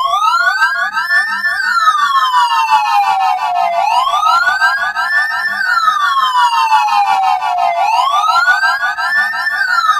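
Emergency vehicle's electronic siren in a slow wail: the pitch climbs for about a second and a half and then falls more slowly, repeating about every four seconds, three times, with each sweep trailing overlapping copies of itself.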